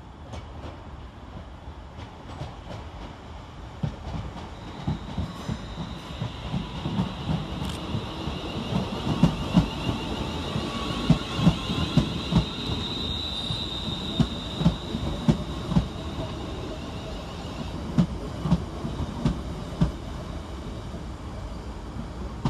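A Class 350 Desiro electric multiple unit running into the platform. Its wheels knock over rail joints in a clickety-clack rhythm that spreads out as the train slows, over a rumble and a high steady squeal.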